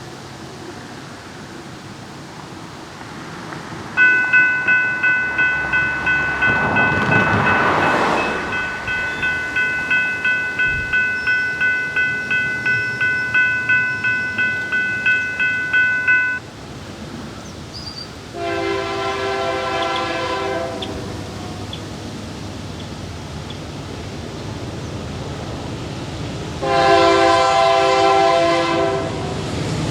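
Railroad crossing bell ringing in quick strokes, about two and a half a second, stopping about halfway through, with a road vehicle passing early in the ringing. Then the approaching freight locomotive's air horn sounds two long blasts for the crossing.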